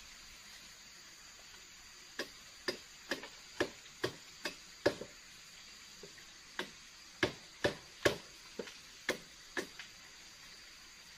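Sharp wooden knocks of wood being chopped by hand, about fifteen strokes at roughly two a second, with a short break midway.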